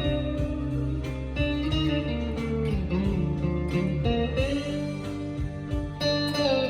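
Squier Bullet Stratocaster electric guitar played clean through a Fender Mustang LT25 amp on its Fender Clean setting: notes and chords ringing out, with a few notes bent in pitch.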